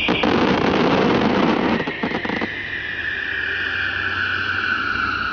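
Daytime fireworks firing: a rushing hiss for about two and a half seconds that ends in a few quick crackles, over a steady high music tone that slowly falls in pitch.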